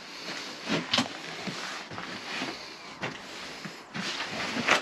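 Rustling and shuffling of a person moving about crouched on attic floorboards, with a few light knocks and a louder rustle near the end.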